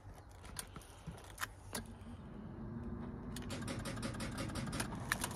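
Ford Transit Mk7 ignition key being turned with a weak battery: a few light clicks, then from about two seconds in a low, steady mechanical sound from the van's starter and engine, growing slightly louder.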